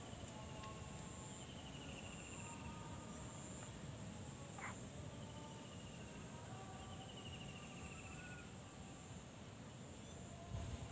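Faint outdoor ambience of insects: a steady high-pitched drone with short trills repeating every few seconds, over faint thin whistling calls and one brief sharp chirp about halfway through.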